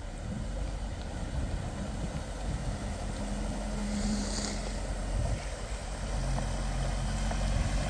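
A van drives slowly through a flooded ford with its engine running low and steady. Water washes around its wheels, and the sound grows gradually louder as it approaches.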